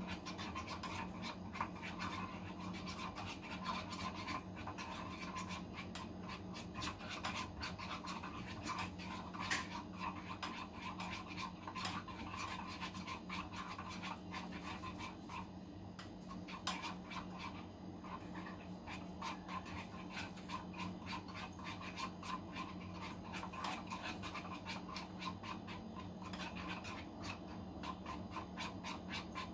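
Continuous rapid scratching and rubbing, many small irregular strokes, over a steady low hum.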